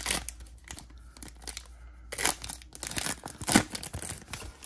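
Foil trading card pack torn open by hand and peeled back, the wrapper crinkling and ripping in irregular bursts, loudest about two seconds in and again about three and a half seconds in.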